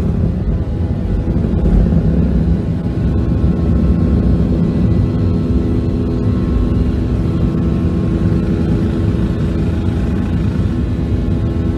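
Cabin noise of a Boeing 737 at takeoff power: a steady, loud jet-engine rumble with several steady tones above it, through the takeoff roll and liftoff into the climb.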